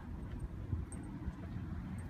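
Wind buffeting the microphone: an uneven low rumble, with a few faint light ticks.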